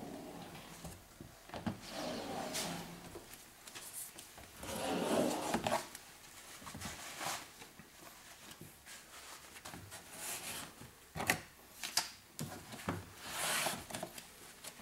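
Irregular rubbing and scraping strokes on car door glass as window tint film is worked into place, with a few sharp clicks.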